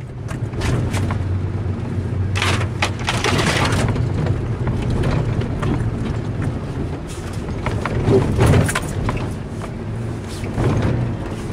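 A Mitsubishi Pajero's 2.5-litre engine running steadily, heard from inside the cab as the 4x4 drives a rough off-road trail. Knocks and thumps come from the body and suspension jolting over the ground, with a longer clattering burst about two and a half seconds in and more knocks about eight seconds in.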